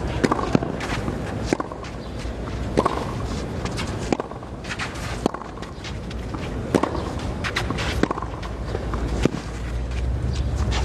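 Tennis rally on a clay court: a string of sharp racket-on-ball hits about a second or so apart, traded back and forth, over a low crowd murmur.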